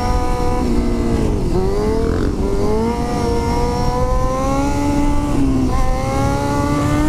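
Dirt bike engine running under throttle on the move. Its pitch dips about one and a half seconds in and again near six seconds, then climbs, over a steady low wind rumble.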